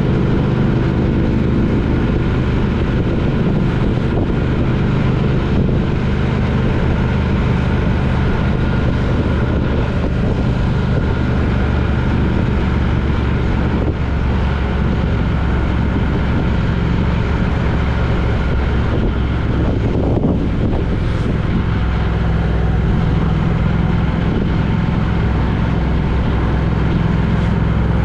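Steady engine drone and road noise of a vehicle travelling at a constant speed.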